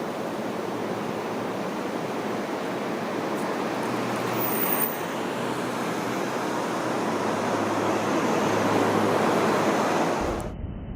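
Steady rushing noise that builds slightly, then cuts off abruptly about ten seconds in.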